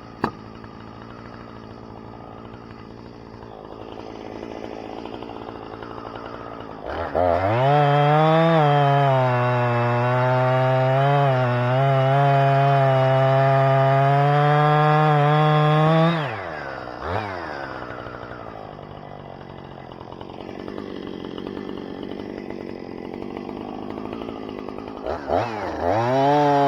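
Two-stroke chainsaw idling, then opened to full throttle about seven seconds in and held for about nine seconds, its pitch wavering as the chain bites into red oak rounds. It drops back to idle with a quick blip of the throttle, and revs up again near the end.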